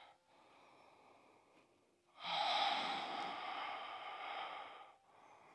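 One long, slow breath by a woman holding a yoga pose. It starts about two seconds in and fades away over about three seconds.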